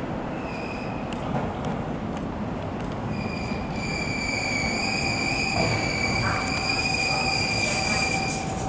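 Train running on rails with a steady rolling rumble. A high-pitched wheel squeal sounds briefly about half a second in, then sets in steadily from about three seconds in and holds.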